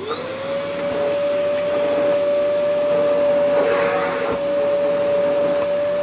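Vax Power Stretch Pet bagless cylinder vacuum cleaner switching on. Its motor whine climbs to a steady high pitch within about half a second, then runs steadily as the combination floor head is pushed over carpet.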